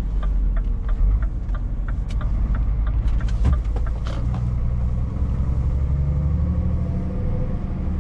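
Scania S 680's V8 diesel engine heard inside the truck cab, pulling through a turn and then gathering speed, its pitch rising over the last few seconds. A regular turn-indicator ticking runs through the first three seconds, and there is a single knock about three and a half seconds in.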